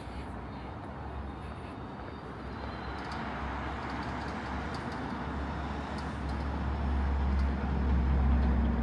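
Street traffic: a steady rush of cars on a city road, with a vehicle's low rumble growing louder near the end as it passes close by.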